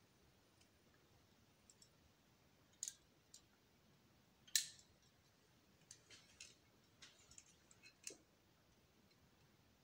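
Near-quiet with scattered sharp clicks and taps: a pair about three seconds in, the loudest about halfway through, and a run of smaller ones in the second half.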